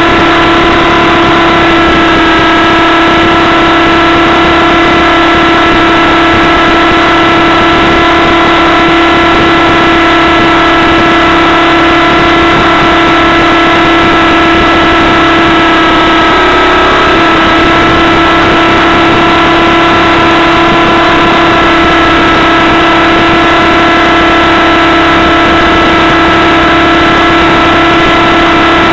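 The nitro glow engine and rotors of a Hirobo Sceadu EVO .30 radio-controlled helicopter, heard from a camera mounted on the helicopter itself. It runs very loud at a steady pitch, with a brief wobble in pitch about seventeen seconds in.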